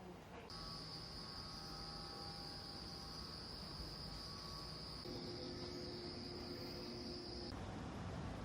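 A steady high-pitched tone over low background noise, starting abruptly about half a second in and cutting off near the end, with fainter lower tones joining partway through.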